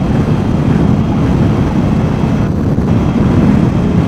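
Steady wind and road rumble of a Can-Am Spyder three-wheeled motorcycle riding along, the engine's drone buried under wind buffeting the microphone.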